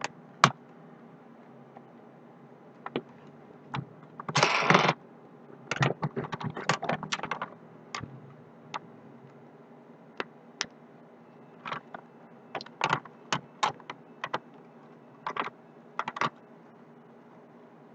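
Sharp plastic and metal clicks, taps and light rattles of a laptop motherboard being handled and seated in its chassis, with a short scraping rustle about four seconds in and a quick run of clicks soon after.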